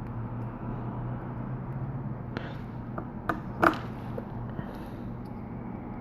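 A few small, sharp clicks and taps from hand tools and small parts being handled during the repair, four in quick succession in the middle, the last the loudest, over a steady low hum.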